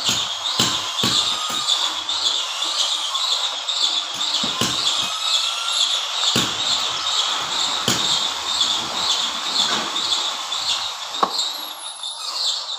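Scattered sharp knocks and taps, irregular and several a second at times, over a steady high-pitched pulsing chirr that beats about three times a second.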